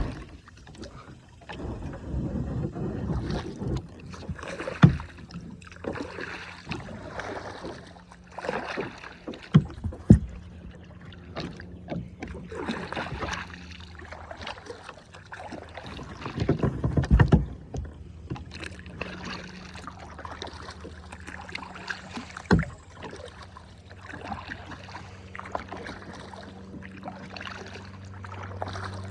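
Kayak paddle strokes swishing through river water, repeated every second or two, with a few sharp knocks.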